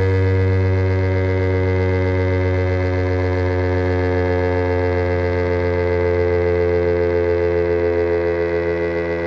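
STH-10 outdoor warning siren sounding a sustained steady tone during its monthly test. The tone is a stack of several pitches and wavers slightly.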